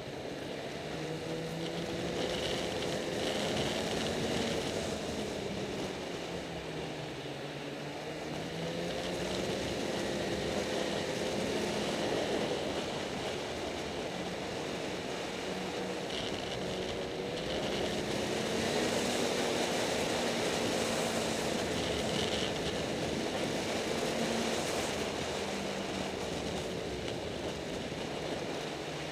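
Snowmobile engine running under way, heard from the rider's seat, its pitch rising and falling again and again as the throttle is opened and eased.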